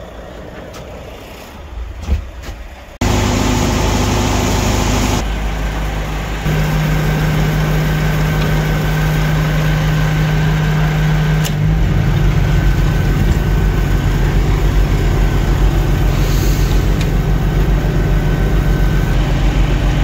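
Quiet knocks and handling noises, then about three seconds in a large engine comes on abruptly and runs steadily, getting louder in steps a few times.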